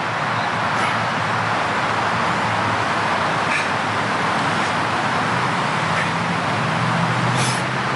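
Steady, even background noise that does not change, with a few faint brief high sounds over it.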